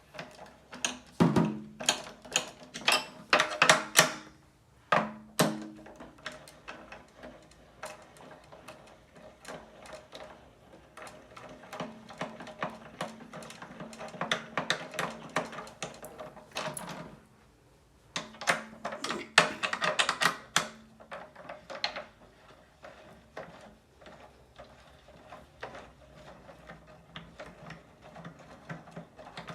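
Drum hardware being worked on: rapid clicks, rattles and knocks of metal parts being handled and tightened, with a faint ring from the drum under them. The clicks come thickest at the start and again in a burst about two-thirds of the way through.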